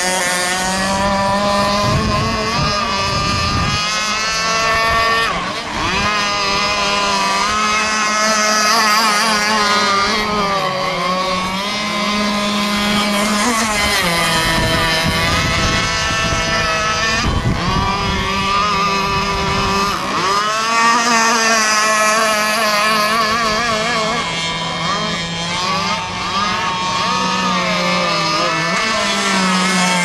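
Gas-powered RC hydroplane boat's small two-stroke engine running at high revs, its pitch repeatedly dipping and rising again as the boat speeds and turns across the water.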